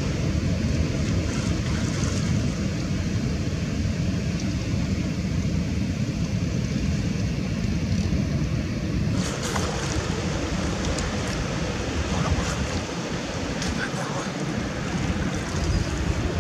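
Wind buffeting the microphone outdoors at the water's edge: a steady rumbling rush. About halfway through a higher hiss joins in, with a few faint ticks or splashes.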